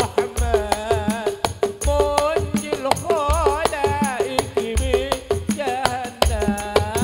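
Sholawat sung by men in a koplo-style arrangement: a wavering, ornamented lead voice over hand drums, with a deep drum stroke about every second and a half and fast, sharp slaps and rattles between.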